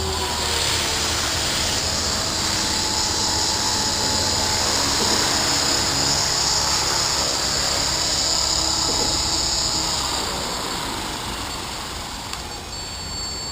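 Align T-REX 500 electric RC helicopter flying: a steady high-pitched motor whine over the rotor noise, easing off a little near the end.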